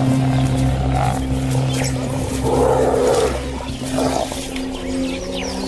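An African wild dog and a spotted hyena snarling and growling at each other in short bursts as they square off, over a low steady drone of held tones from the background score.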